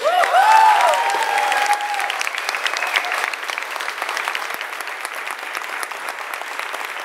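Audience clapping and cheering, with high whoops and shouts in the first two seconds, then steady applause that slowly eases off.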